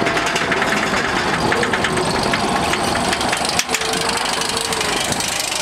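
Roller coaster train being hauled up the chain lift hill: rapid, steady clicking of the lift chain and anti-rollback ratchet over a mechanical rattle and rumble, with a brief break about three and a half seconds in.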